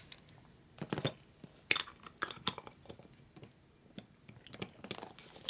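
Scattered light clicks and taps of small metal brake-caliper parts being picked up, set down and fitted together on a workbench, in a few short clusters.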